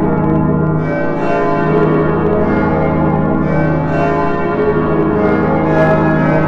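Church bells ringing a continuous peal, several bells struck in quick succession so that their tones overlap and hum on, with a new strike about every half second to a second.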